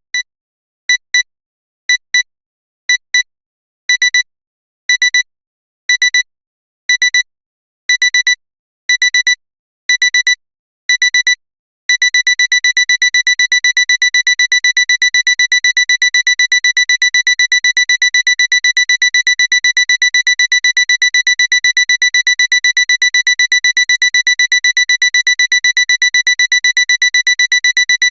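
Electronic alarm clock beeping a high-pitched tone: short beeps about once a second, the first few in quick pairs, each beep growing longer. About twelve seconds in it changes to a continuous rapid beeping.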